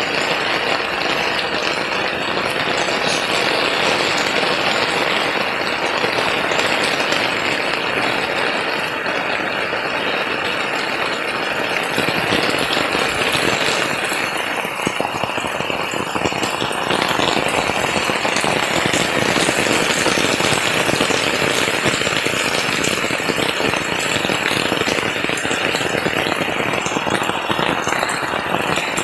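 Steady rain, a dense fast patter of drops falling.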